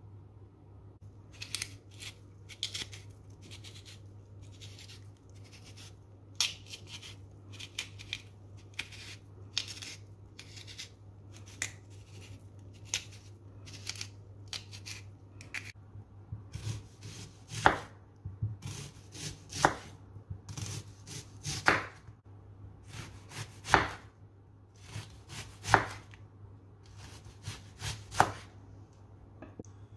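Kitchen knife slicing raw vegetables on a wooden cutting board, cutting a red onion into rings. Light, quick cuts in the first half give way to firmer, evenly spaced cuts about once a second, each ending in a knock on the board. A faint steady low hum runs underneath.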